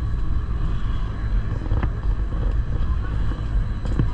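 Steady low rumble of the Gornergrat electric rack-railway train running, with a few faint clicks over it.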